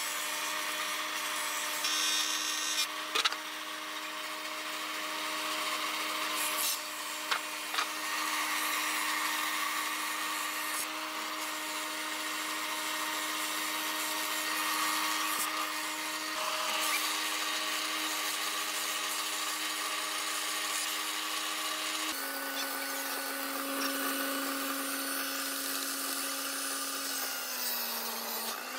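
Thickness planer running steadily as a wooden plank is fed through it, a hum with a rough hiss of cutting. About three-quarters of the way through, the sound changes suddenly to a table saw running through a plank, its pitch dipping near the end.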